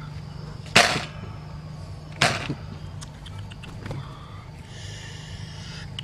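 Pigeon held in a person's hands, flapping its wings twice in brief loud flurries about a second and a half apart.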